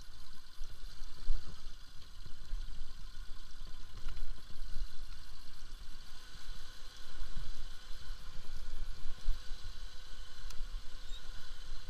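Bajaj Pulsar RS200 single-cylinder motorcycle ridden slowly over a rough gravel track: the engine runs quietly under an uneven low rumble and knocking from the bumps.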